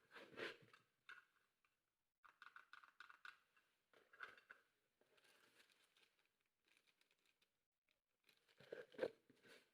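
Faint handling noises: irregular rustling and light clicks, with a louder knock-like cluster about nine seconds in.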